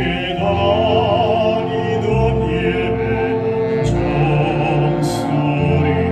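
A baritone singing with vibrato over sustained instrumental accompaniment.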